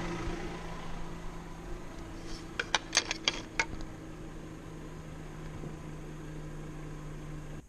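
MillRight CNC M3 desktop CNC machine with its 400 W spindle running with a steady low hum. A quick cluster of about six sharp clicks comes around three seconds in. The hum cuts off abruptly near the end.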